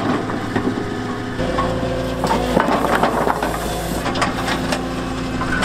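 Skid steer loader's diesel engine running under load while its grapple bucket scrapes and shoves rocks and dirt, with repeated knocks and crunches of stone.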